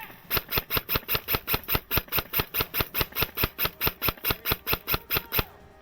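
Airsoft gun firing a fast, evenly spaced string of about 25 sharp clicking shots, about five a second, which stops suddenly near the end.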